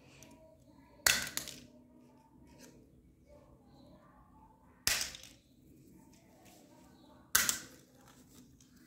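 Three sharp plastic clacks, about a second in, near the middle and near the end, as a homemade spinning toy made of a bottle-cap ring with plastic blades hits the wooden floor and plastic clothespins.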